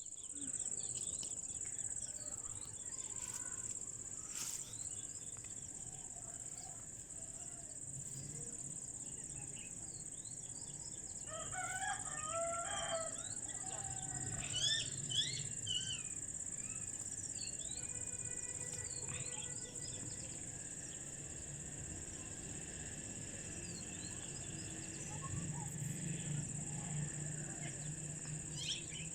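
Birds calling: a rooster crows once about twelve seconds in, with scattered short, high chirps from other birds around it, over a steady high-pitched whine.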